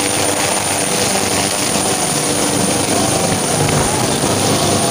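Helicopter running at takeoff power, its rotor and turbine engines making a loud, steady noise with a constant high whine, as it lifts off the ground.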